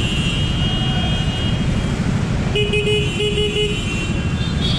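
Steady low rumble of idling traffic. A little past halfway, a vehicle horn starts honking in a series of short toots.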